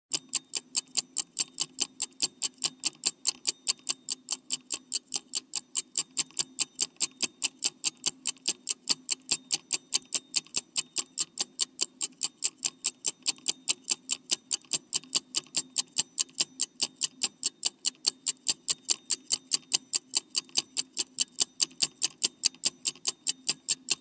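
Clock-tick sound effect of a countdown timer: steady, evenly spaced ticking over a faint low hum.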